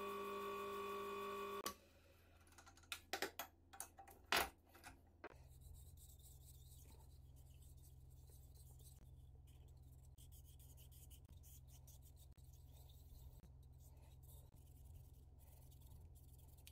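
A steady machine whine with several tones cuts off suddenly about two seconds in. A few sharp knocks and clicks of steel parts being handled follow. After that comes a low steady hum with faint rubbing and ticking of a steel plunger worked in the hands.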